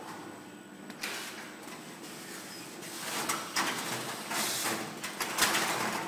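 Machinery of a robotic lettuce-packing line, a robot arm and a packaging machine, running with a steady hum. Several short hiss-like bursts come at irregular intervals, the loudest of them near the end.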